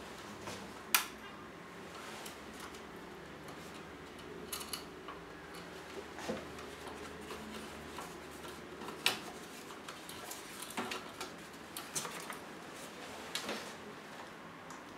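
Scattered clicks and light taps of hard plastic and metal as a small LED video light panel is handled and taken off its mount on a microphone-stand crane arm, with sharp clicks about a second in and again about nine seconds in.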